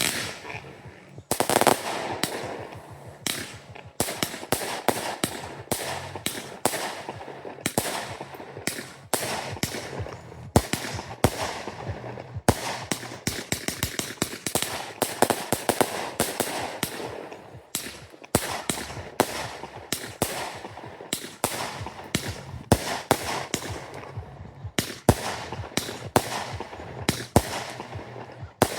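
Fireworks going off in a rapid, nearly continuous string of bangs and crackles, several reports a second, with a brief lull around 18 seconds in.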